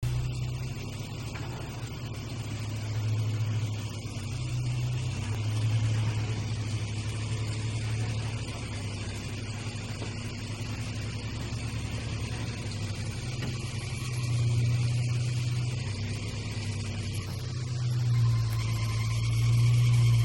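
Motor vehicle engine running, a steady low drone that swells and eases several times.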